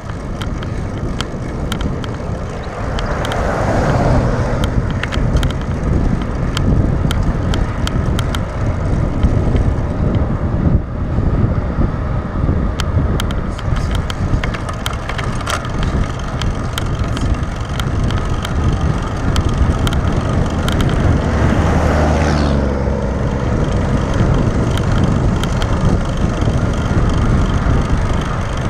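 Road bicycle riding on asphalt: steady wind rushing over the handlebar-mounted action camera's microphone, with tyre noise and scattered small ticks. A louder swell rises and fades about three seconds in and again about two-thirds of the way through, the second one falling in pitch.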